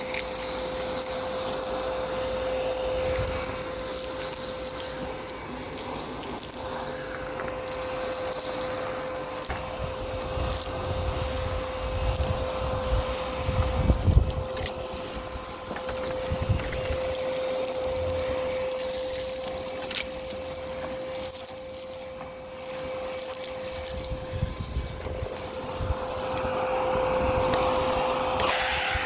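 Miele Complete C2 Tango EcoLine canister vacuum running with a steady motor whine while its floor head is pushed over the street surface. Grit and debris crackle and rattle as they are sucked up, with occasional low bumps, the loudest about halfway through.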